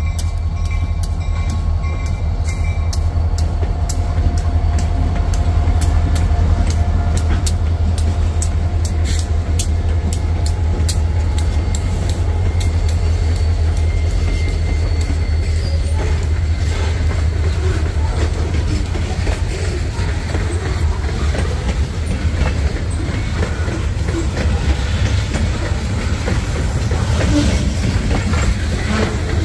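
Reading & Northern freight train rolling past: a steady low rumble, with a quick run of sharp clicks from the wheels over the rail joints in the first third, turning into a denser rushing noise later on.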